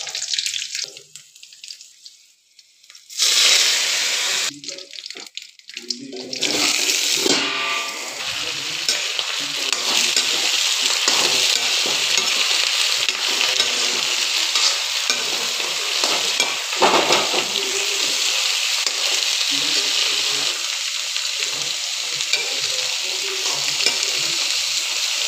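Hot oil sizzling in a kadhai with spice seeds and green chillies, then chopped brinjal and radish frying in the oil and being stirred. The sizzle is broken at first, runs steadily from about six seconds in, and has one sharp knock near seventeen seconds.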